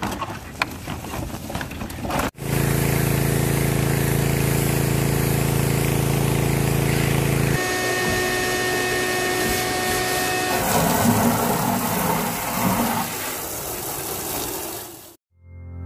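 Gas pressure washer's Briggs & Stratton engine running steadily, then the high-pressure water spray hitting wire mesh and a metal tub. It cuts off abruptly near the end.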